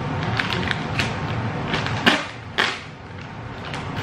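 Plastic bag of play sand crinkling as it is handled and held open, in scattered crackles, with two louder crackles about two seconds in.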